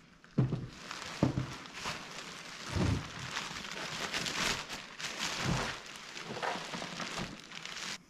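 Clear plastic bag around a new seat crinkling and rustling as the seat is handled, with a few dull knocks of the seat against the workbench.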